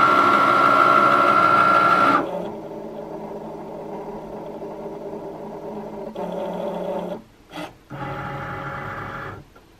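Cricut Maker cutting machine's motors whining steadily as the rollers draw the cutting mat in. After about two seconds this gives way to quieter runs of motor sound that stop and start several times while the machine detects its tool and gets ready to cut. It stops near the end.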